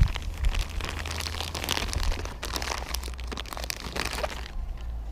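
Crinkling and rustling of a plastic bag or wrapper as a hand rummages through it for a piece of sausage, a dense run of small crackles that stops about four and a half seconds in.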